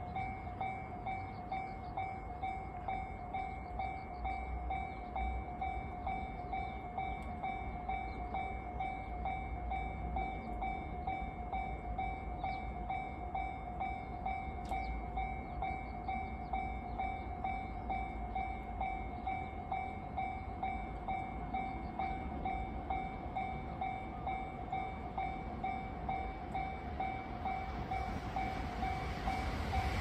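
Japanese level-crossing warning bell ringing steadily with fast, evenly spaced electronic rings, warning of an approaching train. In the last second the noise of the arriving train begins to swell.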